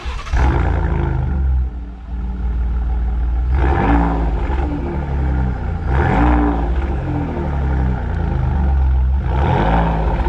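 Ford F-150 exhaust through a Borla S-Type muffler: the engine starts, flares and settles to a low idle, then is revved three times, each rev rising and falling back.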